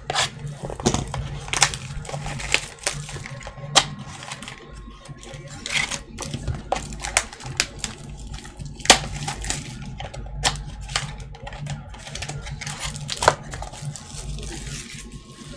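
Hands tearing open a wrapped pack of trading cards and handling the cards and a plastic card holder: crinkling wrapper with a string of sharp clicks and taps.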